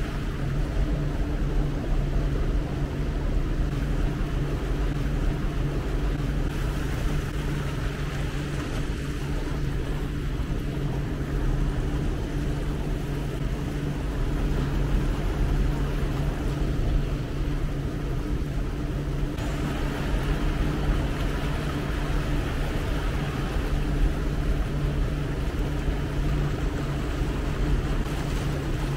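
Tour boat's engine running steadily with a low, even drone, under a constant wash of water and wind noise.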